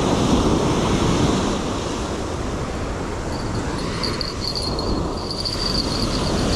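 Surf breaking and washing up the beach, with wind buffeting the microphone, a little louder in the first second or so. From about halfway through, a thin, steady high whine joins in.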